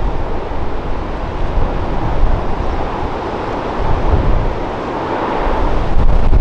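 Rough storm sea, surf breaking and washing, with strong gale wind buffeting the microphone in a heavy, gusting rumble. The wash swells about midway and grows louder again near the end.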